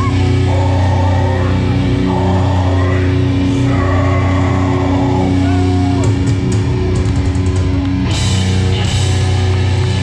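Hardcore band playing live through a loud outdoor PA: held, droning guitar and bass notes under crowd noise, with cymbal hits near the end.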